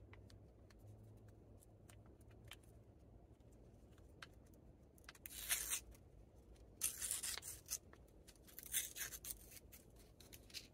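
Paper wrapper of a stick pack of chewing candy being torn open along its tear strip: a few light handling clicks, then three short bursts of tearing and crinkling in the second half.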